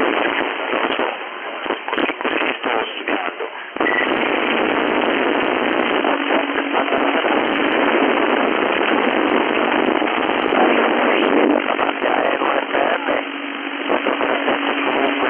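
11-meter FM radio receiver hissing and crackling with static and a weak signal. The noise breaks up and chops in and out for the first few seconds, then a short beep comes in about four seconds in, followed by steady static.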